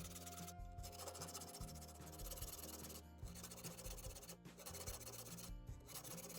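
A file rasping across the teeth of a hand saw during sharpening, in long scratchy strokes with short breaks between them. Faint background music runs underneath.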